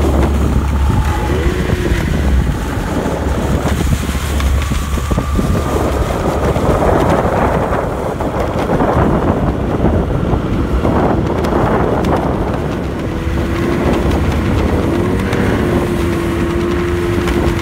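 Snowmobile engine running steadily under way, a constant low rumble with a faint held whine in the second half, and wind buffeting the microphone.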